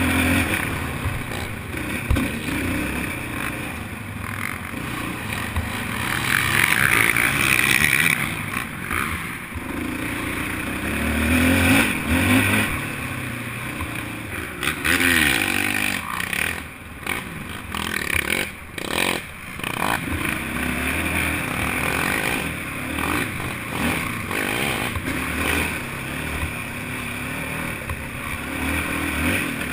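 Quad (ATV) engine revving up and down under hard riding, its pitch rising and falling, with surges and dips in loudness.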